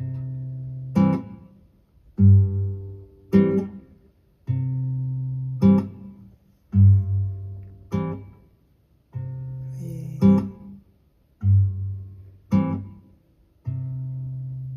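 Recorded music: an acoustic guitar intro in a slow triple-time rhythm, a sustained low bass note followed by a short strummed chord, the pattern repeating about every two seconds.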